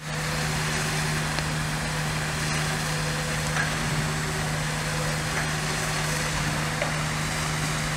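Fire engine's pump engine running at steady revs: a constant low drone that holds one pitch, with an even hiss over it.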